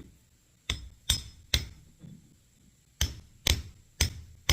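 Hammer tapping a part back into place while reassembling a truck's power steering pump, taking care not to strike the pump shaft. Three quick sharp taps about a second in, then after a pause a steady run of taps about two a second.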